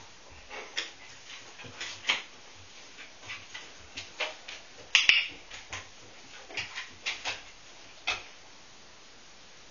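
A large dog's claws clicking and tapping irregularly on a bare wooden floor as it walks about, with a sharper, louder click about five seconds in.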